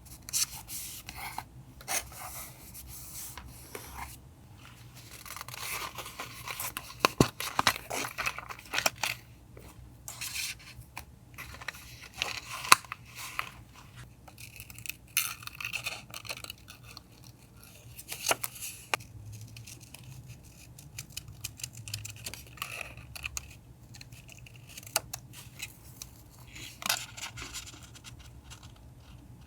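Paper and stationery being handled for a journal collage: irregular crinkling, rustling and scraping, broken by sharp clicks and snips, loudest about a quarter and about halfway through.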